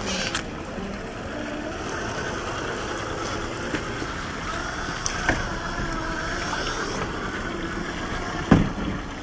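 Electric motor and gear drivetrain of an RC rock crawler whining and rising and falling in pitch with the throttle as it climbs over wet rock. Scattered clicks, and one loud knock near the end.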